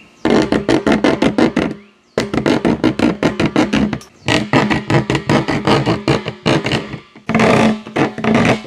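Coarse hand jab saw cutting through the plastic lid of a 55-gallon barrel: fast back-and-forth rasping strokes in runs broken by brief pauses.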